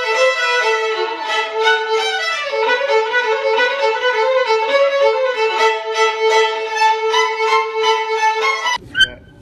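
Violin playing a melody with a long held note, stopping abruptly near the end.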